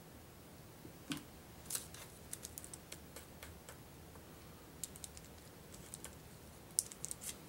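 Faint, irregular light clicks and taps of a tool handle pressing and stirring crushed blush powder wetted with alcohol on wax paper over a hard countertop.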